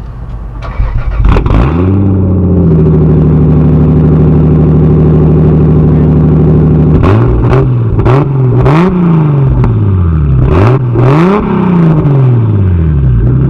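Single-turbo 3.0-litre Toyota 2JZ straight-six on a Tomei all-titanium exhaust, starting about a second in and settling to a steady idle. It is then revved three times, each rev rising and falling, before dropping back to idle near the end.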